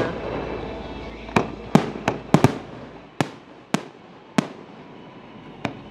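Aerial fireworks shells bursting in a display, a string of about ten sharp bangs at uneven intervals, spacing out toward the end.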